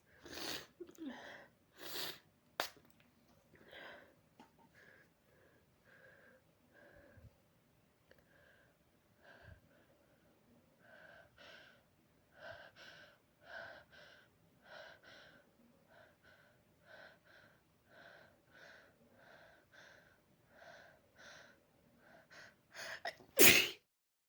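A person breathing in quick, repeated gasps and sniffs, building up to one loud sneeze near the end; the sneeze is set off by inhaling body spray they are mildly allergic to.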